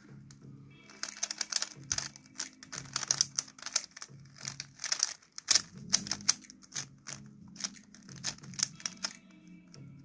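Stickerless 3x3 speed cube being turned fast, its plastic layers clicking and clacking in quick runs of turns with short pauses between. They start about a second in and stop near the end. Under them runs background music with a low pulsing beat.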